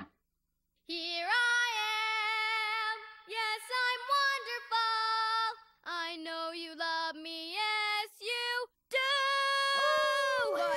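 A girl's voice singing in long held notes, phrase after phrase with short breaks, starting about a second in after a moment of silence.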